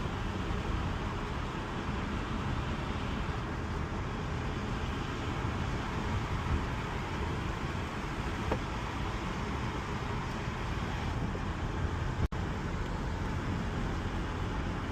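Holden VY Commodore cruising at around 60 km/h, heard from inside the cabin: steady engine and tyre noise on the road. A brief sharp click with a momentary dropout comes about twelve seconds in.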